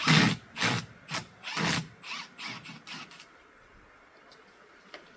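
Power tool run in short bursts, backing fixings out of an old wooden window frame. Loud bursts come about twice a second, then thin out and fade, stopping about three seconds in.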